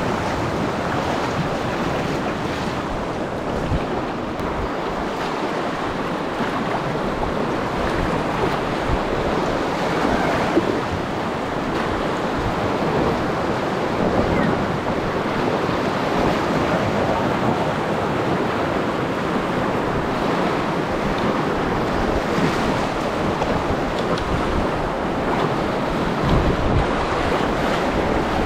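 Rapids of a glacier-fed river rushing steadily around a packraft as it runs through whitewater.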